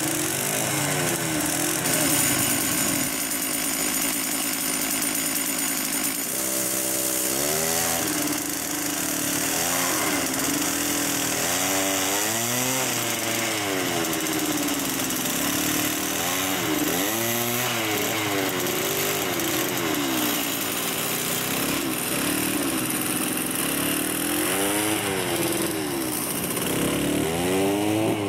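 Small petrol engine of a lure-coursing machine, a chainsaw-type powerhead winding the lure line onto a spool, revved up and down over and over as the operator varies the lure's speed ahead of the running hounds.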